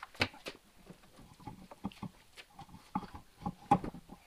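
Irregular scuffs, taps and knocks of a large car tire on a steel wheel being lifted off the floor and carried by hand, with a sharper knock near the end.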